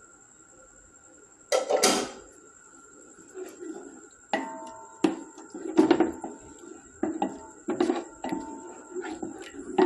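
Metal spoon knocking and scraping against the side of a cooking pot while stirring a thick white sauce: a louder scrape about a second and a half in, then irregular clinks with a short metallic ring, roughly one a second.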